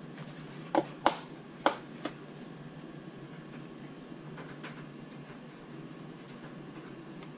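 A few sharp plastic clicks and knocks from an egg-incubation tub and its lid being handled. Four come in the first two seconds and two fainter ones about four and a half seconds in, over a steady low hum.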